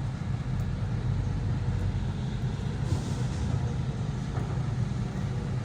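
Dump truck's diesel engine running with a steady low drone, with a short burst of air hiss about three seconds in.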